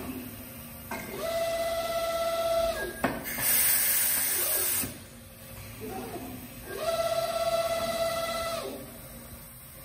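Komo Fusion 512 five-axis CNC router's axis drives whining through two rapid moves; each time the whine rises, holds one steady pitch for under two seconds and falls away. Between the moves, a sharp click is followed by a loud hiss of compressed air lasting about a second and a half.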